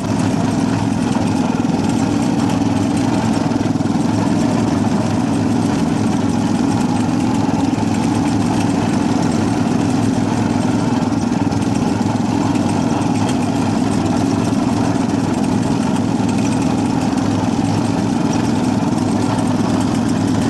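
Induction furnace lining vibrator running with a steady, loud mechanical hum and buzz that stays even throughout.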